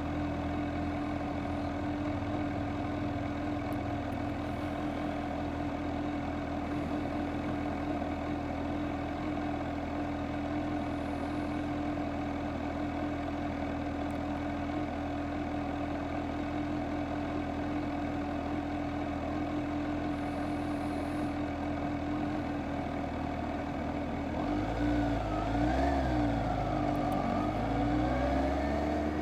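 Kawasaki Z H2 SE's supercharged inline-four idling steadily, then revving up as the bike pulls away near the end, its pitch rising and dropping through the gear changes.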